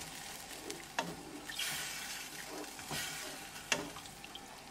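Wooden spatula stirring a thin tomato masala sauce in a pan, with a light sizzle underneath and a few sharp knocks of the spatula against the pan.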